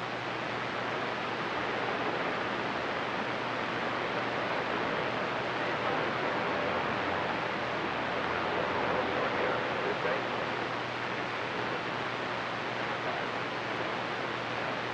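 CB radio receiver hissing with open squelch between transmissions: a steady, even static.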